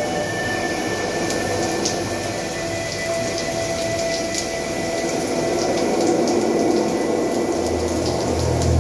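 Spa experience shower's ceiling rain head spraying water down inside a tiled shower cabin, a steady hiss of falling water with a few faint held tones under it. A low rumble starts to build near the end.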